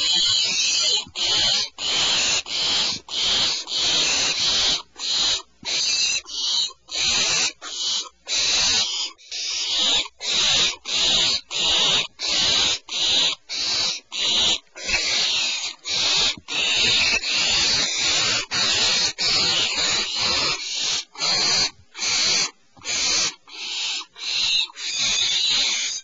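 Barn owls giving rasping hiss calls over and over, nearly two a second, the food-begging call heard at a nest around a prey delivery.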